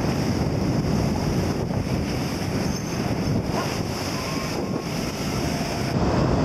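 Rough sea water churning and splashing against a ship's stern, with wind buffeting the microphone. The sound changes abruptly near the end.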